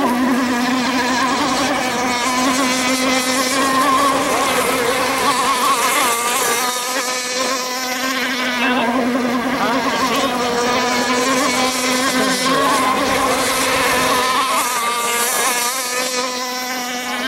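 Radio-controlled model speedboat's motor running at speed across the lake, a loud, steady buzzing drone that wavers in pitch through the middle.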